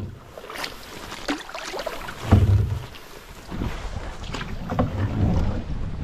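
Canoe moving through choppy lake water, with water splashing and lapping against the hull. Wind buffets the microphone in low rumbling gusts, the loudest about two seconds in.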